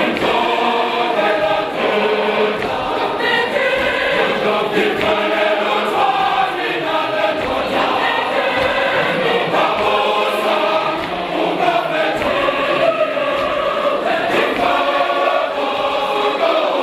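Large mixed choir of men's and women's voices singing a gospel song together in harmony, steadily and without a pause.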